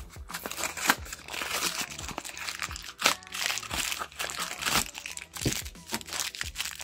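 Crinkling and crackling of a blind-box pin's packaging being handled and opened, with many sharp crackles.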